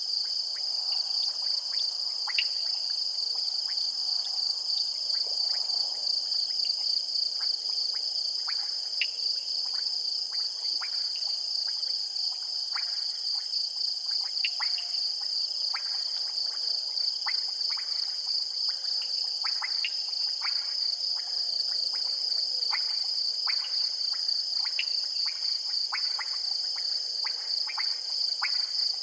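Crickets in chorus, a steady high-pitched trill, with frogs calling in many short, irregular clicks through it.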